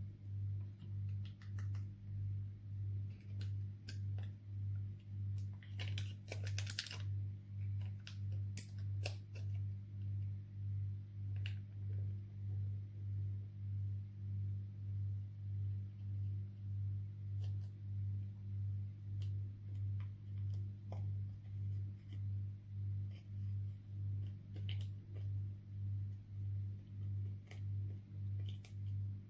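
Slime being pressed and worked, giving scattered sticky clicks and crackling pops, busiest in the first several seconds. Under it a low ambient drone pulses about twice a second.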